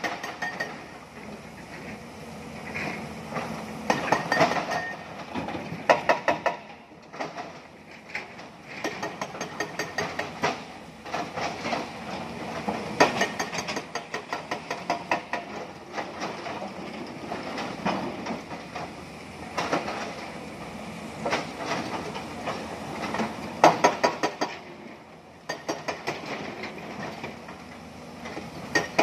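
Rocks clattering and knocking in bursts of rapid hits every several seconds as an XCMG crawler excavator digs broken stone and dumps bucketloads into a steel dump truck body, with the excavator's engine running underneath.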